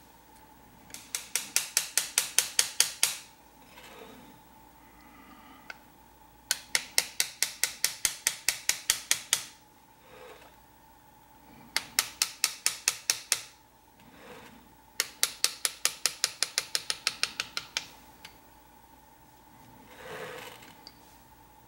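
Hand engraving: a small hammer tapping an engraving chisel as it cuts into a metal plate, fast even taps at about seven a second. The taps come in four runs of two to three seconds each, with a soft bump in each pause between runs.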